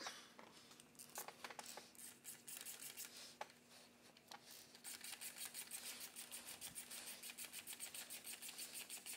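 Faint clicking from a thread tap being turned with an 11 mm 12-point socket in a drill guide, cutting new threads in a stripped head-bolt hole of a Toyota 2AZ-FE block. A few scattered clicks at first, then a steady run of about eight clicks a second from about five seconds in.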